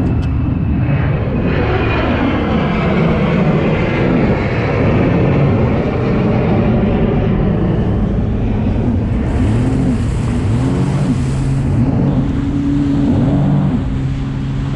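Jet ski engine of a freshly rebuilt Sea-Doo GTX idling, its pitch wavering a little in the middle and then settling into a steady hum, over wind and water noise.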